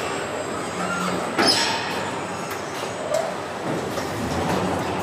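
Steady machinery noise of a robotic car body assembly line, with short squeals and clicks and one brief loud burst about a second and a half in.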